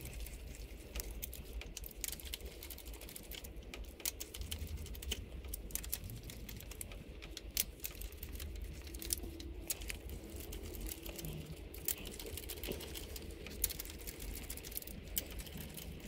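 Faint, irregular metallic clicks and ticks of an E14 Torx socket and new cylinder head bolts being turned in by hand on a 1.8 L engine, threading them in without tools to check they run in freely.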